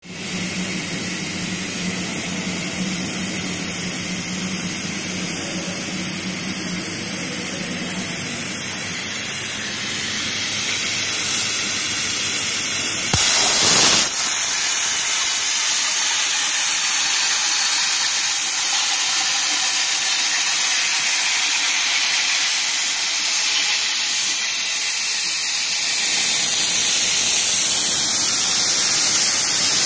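CNC plasma cutter's torch hissing steadily as it cuts steel plate. A low hum sits under the hiss for the first eight seconds, and there is a brief louder rush about 13 seconds in.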